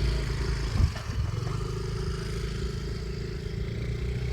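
An engine running steadily at a low, even pitch, with a single knock a little under a second in.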